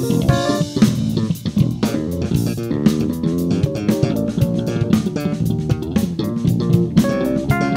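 A live instrumental funk-fusion band playing a groove: electric guitar and electric bass over a drum kit.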